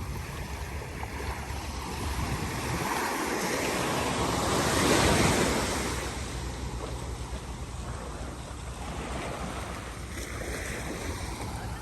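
Ocean surf breaking on the shore: a wave's wash swells to its loudest about five seconds in and then dies away, over steady wind rumble on the microphone.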